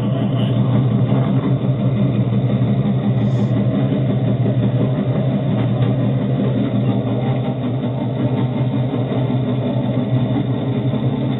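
Modified Suzuki Samurai rail cart's engine running steadily as it rolls along the rails.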